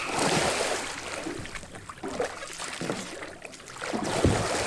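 Water splashing and sloshing around a capsized sea kayak as the paddler sweeps a wooden Greenland paddle through the water, trying to roll back up. The splashes come irregularly, a few stronger than the rest.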